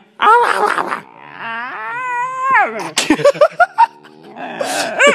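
Dalmatian puppy howling: a loud opening yowl, then one long held howl, then a quick string of short yips about three seconds in.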